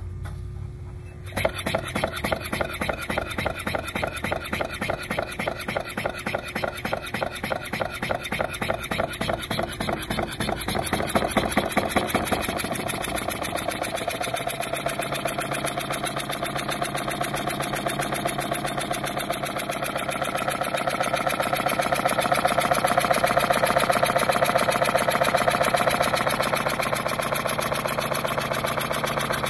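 Homemade compressed-air engine (single-acting single cylinder, opposed twin pistons, rotary valve) starting about a second in as air is applied. It then runs with rapid, even exhaust puffs and mechanical clatter that speed up over the run and grow louder for a while before the end.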